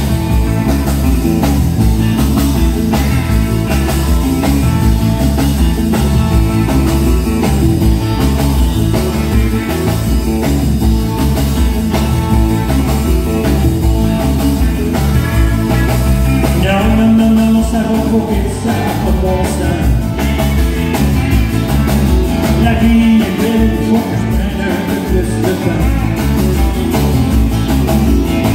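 Live amplified country-rock band playing a song on electric and acoustic guitars and drums, with a man singing.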